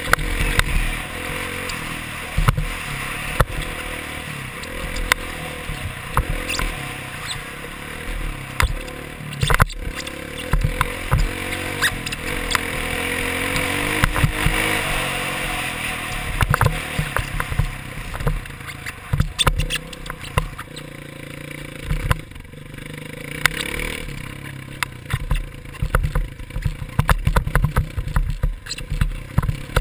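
Dirt bike engine running and revving with the ride, heard from a helmet-mounted camera with wind noise over the microphone. There is a long rising pull about halfway through, and many sharp knocks and rattles from bumps in the second half.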